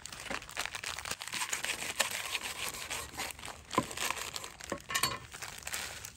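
Dense crinkling and crackling: many small crackles with a few sharper clicks, busiest about five seconds in.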